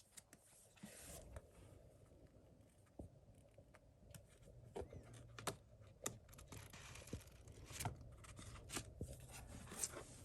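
Faint, scattered clicks, taps and rustles of small objects being handled, sparse at first and busier from about halfway through.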